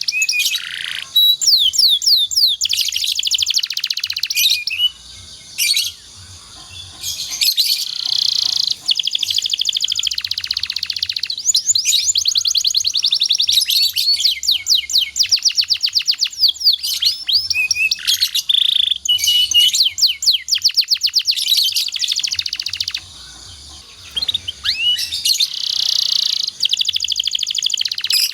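Domestic canary singing a long, continuous song of fast trills and rolls, rapidly repeated high notes with quick glides, broken by two short pauses.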